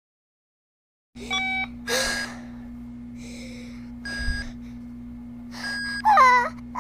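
Slow electronic beeps, several tones at once, repeating about every second and a half over a steady low hum, starting about a second in, with soft breathy noises between them. Near the end the sick cat character lets out a falling, moaning cry.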